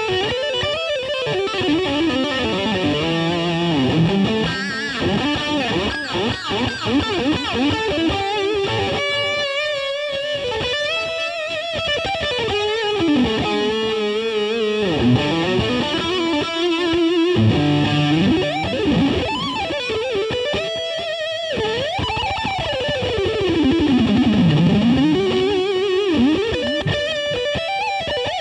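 Stratocaster-style electric guitar played through a Laney LC50-112 all-valve combo amp, with 6L6 output valves and a Celestion 7080 12-inch speaker. It plays fast lead runs that sweep up and down in pitch.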